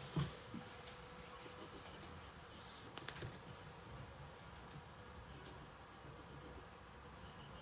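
Pencil scratching faintly on sketchpad paper in short drawing strokes, with a couple of soft taps, one just after the start and one about three seconds in.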